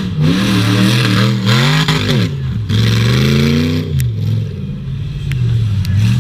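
Rock bouncer buggy's engine revving hard in two long throttle bursts as it climbs the dirt hill, its pitch rising and falling. About four seconds in there is a sharp crack, and the engine drops back to a lower, uneven run.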